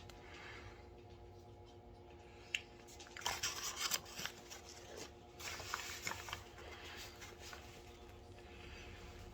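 Two short spells of crinkly rustling from the cookie's plastic packaging being handled, about three seconds in and again near six seconds. A sharp click comes just before them, and a faint steady hum runs underneath.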